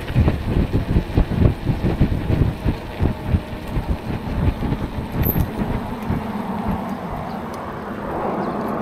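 Wind buffeting the microphone of a moving e-bike, gusty and uneven, easing after about six seconds. Near the end a steadier rushing noise builds.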